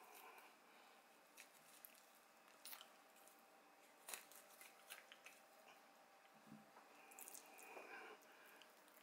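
Faint wet squishing and scattered soft clicks of a kitchen knife slitting open a salmon's belly by hand, over near-silent room tone.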